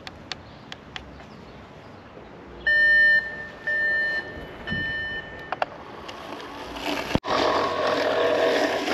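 Three electronic beeps from the EcoFlow Blade robotic lawn mower after its emergency stop, the third longer than the first two. About seven seconds in, a louder steady whirring noise takes over.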